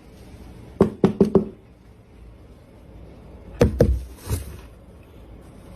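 A run of sharp knocks: four quick ones about a second in, then two or three more a little past the middle.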